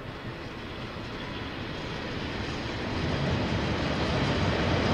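KiwiRail diesel train approaching, its rumble growing steadily louder.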